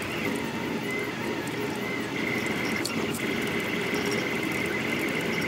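Stepper motors of a Rostock delta 3D printer whining steadily as the print head moves fast, the high whine wavering in pitch with the head's moves. A brief click about three seconds in.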